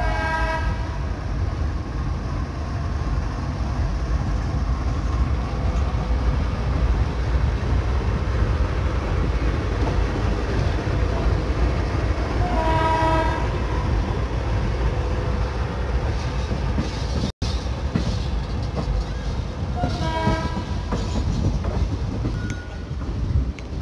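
Passenger train running, heard from inside the coach as a steady rumble of wheels on the track. A diesel locomotive's horn gives three short blasts: at the start, about halfway through, and again a few seconds later.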